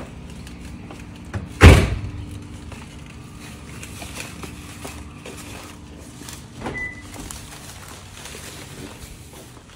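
A car's rear hatch is pulled down and slammed shut: one heavy thud a little under two seconds in. Lighter knocks follow, with a short high beep about seven seconds in.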